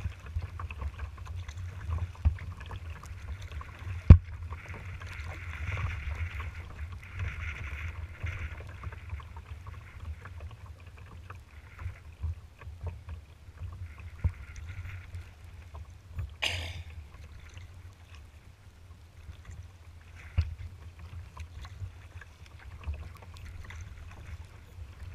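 Kayak moving across choppy water: paddle splashes and water lapping at the hull over a steady low wind rumble on the microphone. A sharp knock comes about four seconds in.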